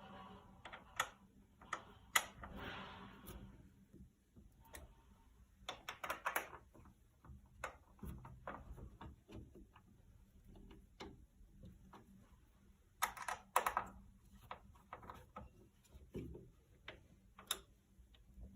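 Scattered small clicks, ticks and short scrapes of hand work on metal fixings, as the screws holding a display header are refitted and turned with an Allen key.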